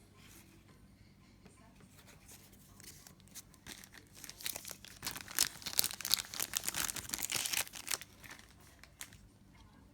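Wrapper of an Upper Deck hockey card pack being torn open and crinkled. It starts about three seconds in and stops shortly before the end.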